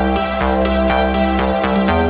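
Electronic background music with a steady beat and sustained synth bass and chords.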